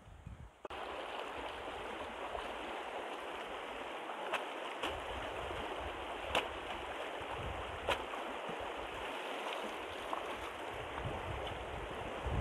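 Shallow river water rushing steadily over rocks, starting suddenly about a second in, with a few short sharp splashes as a basket of catfish is rinsed at the water's edge.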